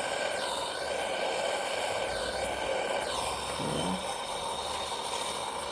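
Gas torch flame hissing steadily while a leaking copper-brass radiator core is heated and soldered.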